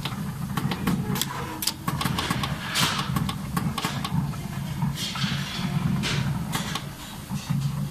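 Automatic multi-colour PVC dispensing machine running: a steady low hum with frequent sharp clicks, and two short hisses about three and five to six seconds in.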